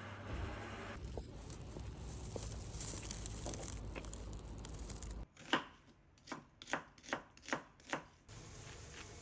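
Kitchen knife chopping on a cutting board: a quick run of about seven sharp knocks over a little more than two seconds, starting past the middle. Before that there is a low steady hum with light clicks of handling.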